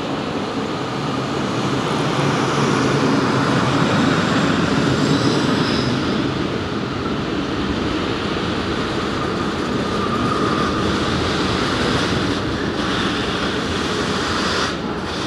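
A train running over the tracks: a steady rumble of wheels on rail with a faint high wheel squeal at times. It drops off suddenly near the end.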